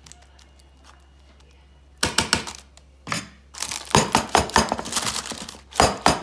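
Quick, sharp tapping as chocolate biscuit cake mixture is levelled in a parchment-lined tin: quiet for about two seconds, then a short run of taps, and from about four seconds in a fast, even tapping of about six a second.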